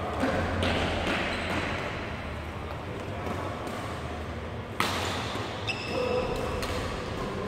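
Badminton rally: sharp racket strikes on the shuttlecock, the loudest a crack about five seconds in, with short squeaks of shoes on the court floor just after and footsteps, echoing in a large sports hall.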